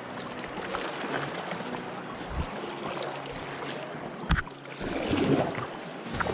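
River water rushing and splashing around a raft, with two sharp knocks about two and a half and four seconds in.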